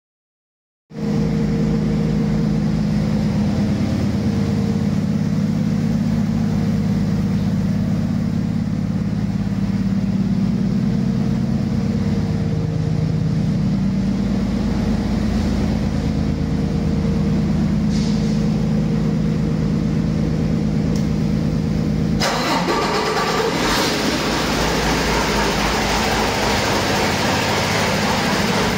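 Used 2016 Detroit Diesel DD15 inline-six diesel engine running on a test stand at a steady speed, an engine the seller says runs excellent. Its sound cuts in suddenly about a second in, and about three-quarters of the way through a hiss comes in over it.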